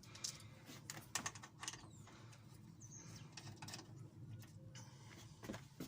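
Faint, scattered small clicks and taps of a screwdriver and a metal lock face plate being handled on an aluminium door frame.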